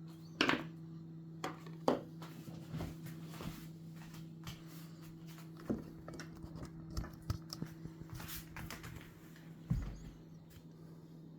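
Irregular clicks, taps and knocks of 3D-printed plastic model parts being handled, over a steady low hum.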